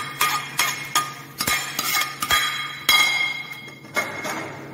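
A steel ladle knocks and scrapes against a steel pan, scooping out a cooked vegetable mixture. It makes about ten sharp metallic clinks at an uneven pace, each with a brief ring.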